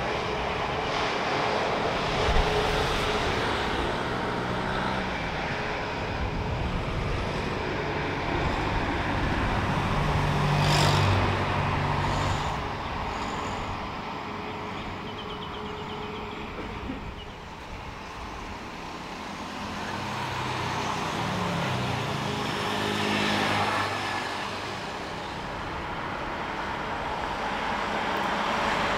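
Jet engines of Airbus A320-family airliners running on the runway: a steady rushing noise over a low hum. It swells about ten seconds in, dips a few seconds later and rises again near the end.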